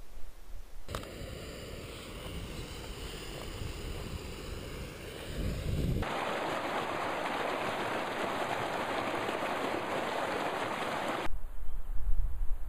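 Rushing white water of a mountain stream cascade: a softer hiss at first, then a loud, even rush from about six seconds in around a water bottle held in the flow. Near the end it cuts off to gusty wind rumbling on the microphone.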